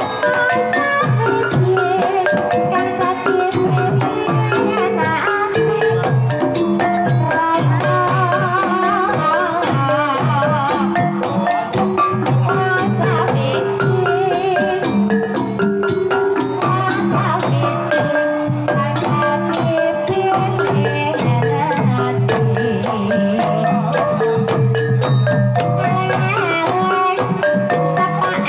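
Live Banyumasan gamelan playing a tayub gending: a kendang hand drum and small bronze kettle gongs keep a steady pulse of pitched, ringing notes, with a sindhen's voice wavering in vibrato over it in stretches.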